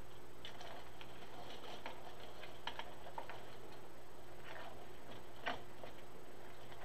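Irregular light clicks and crinkles from hands arranging deco mesh and glittered branches, with one sharper click about five and a half seconds in.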